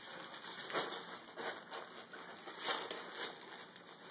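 Wrapping paper crinkling and tearing as a dog paws and chews at a wrapped present, in irregular scratchy bursts.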